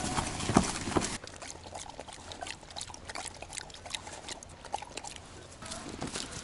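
Footsteps crunching through dry leaves for about the first second, then quieter close sniffing and scattered small crackles from a Samoyed nosing around near the microphone.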